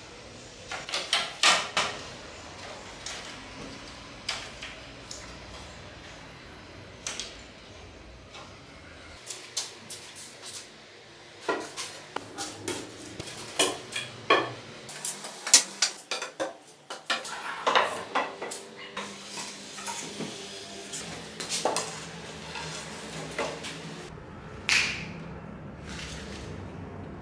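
Dry, hollow reed canes clattering and knocking against one another and on a tile floor as they are gathered and handled, in a series of sharp, irregular knocks.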